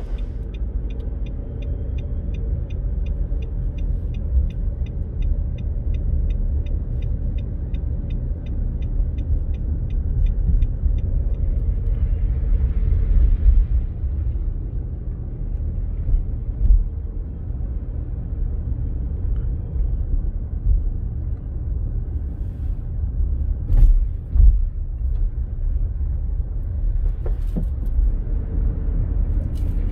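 Hurricane wind rumbling steadily, with a regular light ticking of about three a second through the first eleven seconds or so and a few sharp knocks later.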